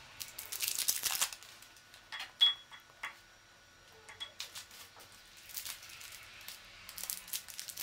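Foil and paper wrappers of chocolate bars crinkling as they are peeled off, and pieces of chocolate dropped into a drinking glass, clinking against it a few times with a brief ring, the loudest clink about two seconds in.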